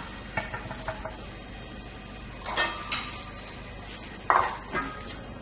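Metal bowls and utensils clinking and clattering in three short bursts, each with a brief ringing note.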